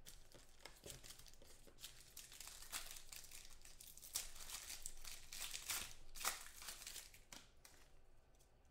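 Foil trading-card pack wrappers crinkling and tearing as a pack is opened by hand: a dense run of fast crackles, thickest in the middle and thinning toward the end.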